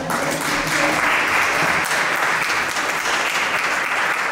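Applause from a small group of onlookers, a steady dense patter of clapping hands.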